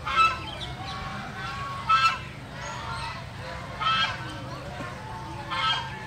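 Waterfowl giving short nasal honking calls, about one every two seconds, four in all.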